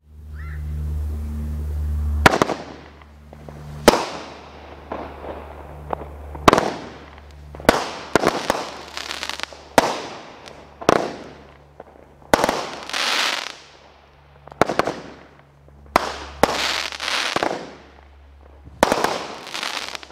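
Twelve-shot consumer fireworks cake firing. About a dozen sharp bangs come at irregular intervals of one to two and a half seconds, each followed by a crackling, fizzing tail as the crackling stars break.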